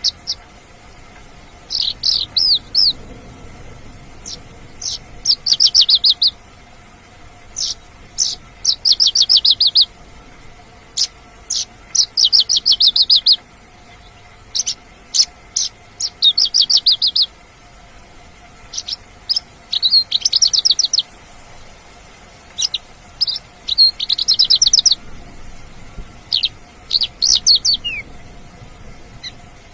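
Mongolian lark singing: a string of short song phrases, each a rapid, high trill about a second or two long, repeated every few seconds with sharp single notes in between.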